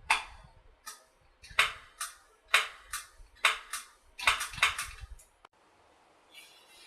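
Sharp metallic taps, a dozen or so in irregular groups over about five seconds: a Honda CX500's starter solenoid being banged with a tool, which the owner finds makes it crank when the start button is pushed.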